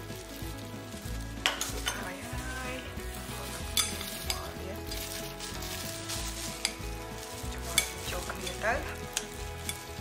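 Metal ladle and chopsticks clinking against a ceramic bowl and steel pot as dressing is spooned over a green papaya salad and the salad is tossed: a few sharp clinks a second or two apart over a steady soft hiss.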